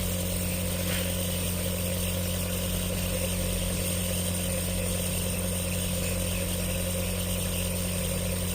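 Compressor nebulizer running, a steady low mechanical hum with a hiss above it and no change in pitch or level.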